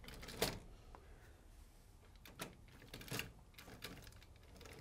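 1949 Hornby O gauge clockwork tinplate locomotive running along the track: a few faint, irregular clicks and clatter from its wheels on the rails, rickety on modern track.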